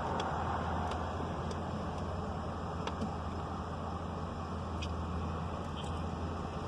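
Steady low hum and hiss of a stopped car idling, with a few faint ticks.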